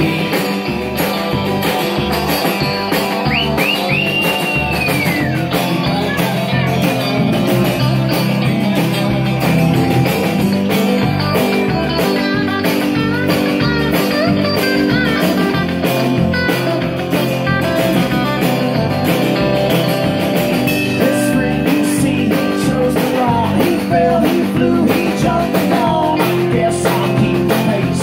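Live rock band playing: electric guitar, electric bass, acoustic guitar and a Ludwig drum kit keeping a steady beat, with high sliding notes about three seconds in.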